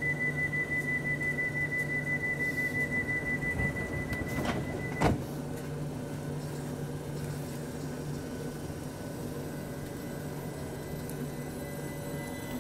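London Overground Class 378 electric train standing at the platform with a steady low hum, its high pulsing door-warning tone sounding for about five seconds and ending in a sharp knock as the doors shut.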